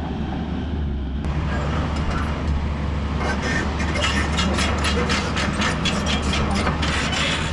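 Excavator's diesel engine running steadily under load. From about three seconds in, a fast run of sharp cracks and clanks joins it as the machine works.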